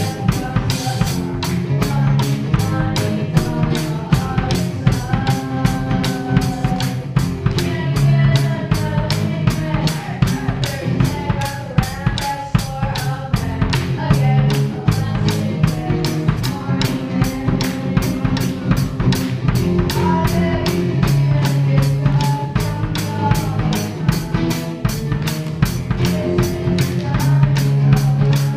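A live band playing a rock song unplugged: acoustic guitar over a steady drum beat.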